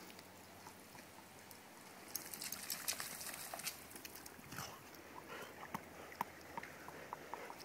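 Faint, scattered ticks and patters from a wet dog moving about on a concrete pool deck, its coat still dripping.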